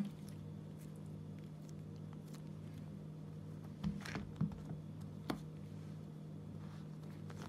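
Faint handling sounds of slime and foam squishy blocks being pressed and stacked on a wooden table: a few light taps and clicks, about four between four and five and a half seconds in, over a steady low hum.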